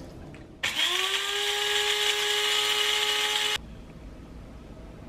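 Small electric coffee grinder running for about three seconds: the motor's pitch rises as it spins up, holds steady while it grinds, and then cuts off suddenly. Only faint clicks follow.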